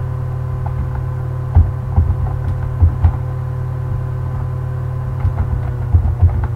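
A steady low electrical hum from the recording setup, with irregular clicks of computer keys being typed in quick little clusters.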